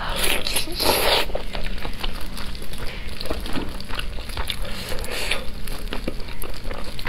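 Close-miked eating of saucy chicken drumstick meat: a louder wet bite or tear in the first second, then chewing with many small wet clicks and squelches.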